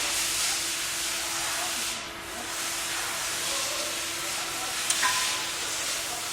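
Compressed air hissing from an air tool in long blasts, broken briefly about two seconds in, with a sharp click about five seconds in.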